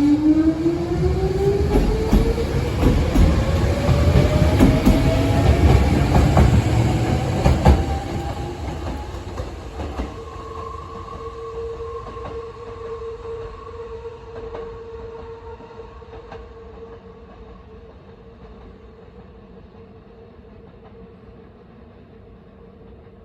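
Nose Electric Railway 5100 series electric train running past: its traction motors whine with a pitch that rises as it accelerates, over a heavy rumble with wheels clacking on rail joints. About ten seconds in the rumble drops away, and a steady hum lingers while the train fades into the distance.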